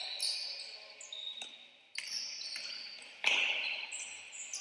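Indoor basketball game sounds: a ball bouncing on the court and other knocks and squeaks, echoing in a large hall, with a sudden louder surge of court noise just after three seconds.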